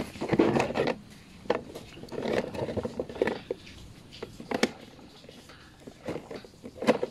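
Hands handling hard plastic containers: irregular knocks, clicks and short scrapes, with a few sharp taps.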